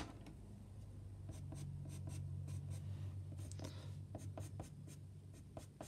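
Pastel pencil scratching on paper in many short, quick strokes, hatching fur. A low steady hum rises in the background about a second in and fades out after about four and a half seconds.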